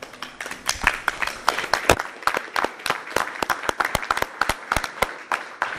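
Applause from a small group of people, with the individual claps distinct and irregular.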